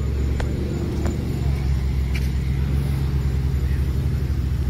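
A car engine idling steadily close by, with a fast, even low pulse.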